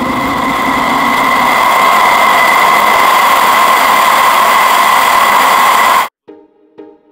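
Triple outboard motors running at high speed, a steady high whine over the rush of wind and spray. The sound cuts off suddenly about six seconds in.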